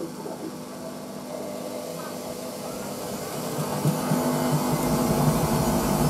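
Hoover VisionDynamic front-loading washing machine running, its drum motor humming with steady tones that grow louder over the second half.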